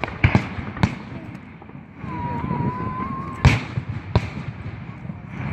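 Fireworks going off: a few sharp bangs in the first second, then a steady whistle for about a second and a half that ends in the loudest bang, and one more bang shortly after.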